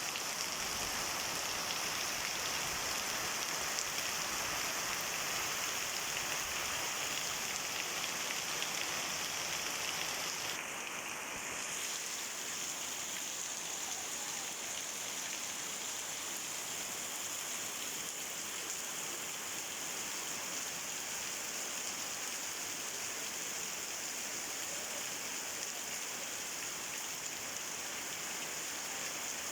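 Heavy rain pouring down in a steady, even hiss. About eleven seconds in it briefly shifts, then goes on slightly quieter.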